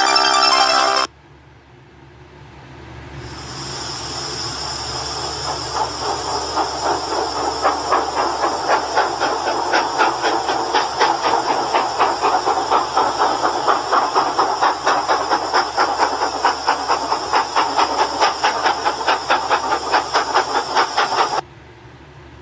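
A hissing sound effect swells up over a few seconds, then pulses in a fast, even rhythm, and cuts off suddenly near the end. The end of a logo's music plays briefly just before it.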